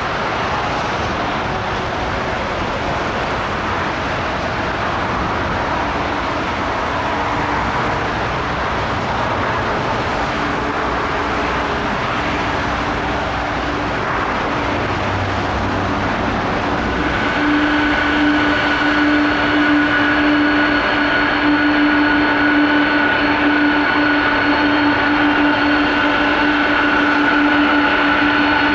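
Jet airliner engine noise: a steady broad roar from a landing Boeing 787-8. About two-thirds of the way through it gives way to louder jet noise with steady whining tones from a Boeing 747-400F's four engines at take-off thrust.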